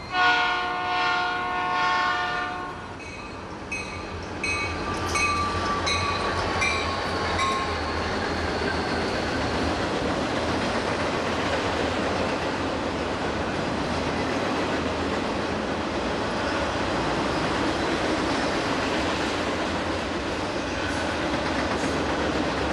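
Norfolk Southern freight diesel locomotives sounding their air horn as a chord for about three seconds as they approach, followed by a short run of evenly spaced rings. The locomotives then pass with a steady low engine rumble, and the intermodal container cars roll by with continuous rail clatter.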